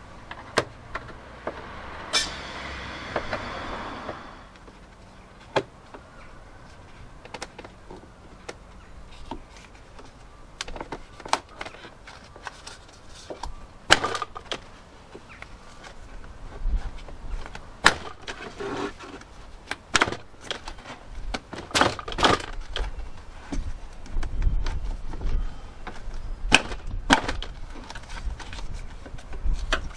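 Irregular clicks and knocks of hands and a trim tool working at a Land Rover Discovery 2's plastic door trim panel as its fixings are undone and it is pried at. There is a rustle of about two seconds shortly after the start, and a low rumble comes and goes in the second half.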